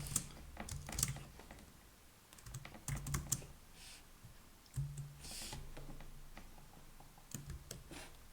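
Computer keyboard typing, in three short bursts of key clicks with pauses between.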